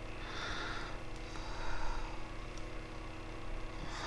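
A person breathing through the nose, about three slow breaths, while small plastic action-figure parts are worked together in the hands, with a couple of faint clicks. A steady low hum runs underneath.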